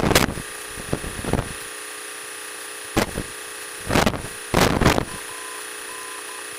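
Light airplane cabin noise heard through the headset intercom: a steady hiss with a faint engine hum. It is broken by about five short bursts of noise on the microphone. Near the end a faint beep starts keying on and off in short and long pieces, like a Morse code signal on the radio.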